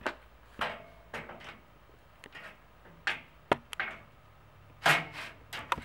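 A steel bed-frame center support being handled and slid to length, with scattered metal clicks and knocks. The sharpest click comes about three and a half seconds in, and there is a louder clatter near the end.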